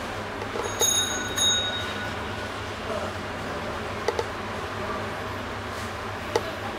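Steady background hum and noise, with two short high ringing chimes about a second in and a couple of faint clicks later.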